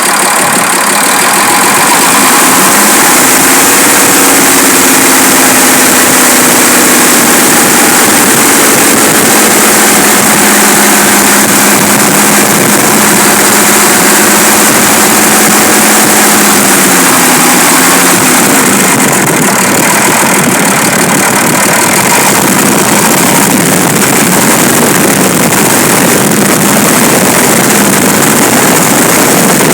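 Fiat 190 truck's diesel engine idling steadily, with good oil pressure, while its air compressor slowly builds brake air pressure. The engine note eases down slightly about 17 seconds in.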